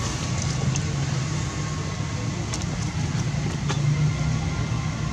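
Steady low hum of an engine running, with a few faint clicks over it.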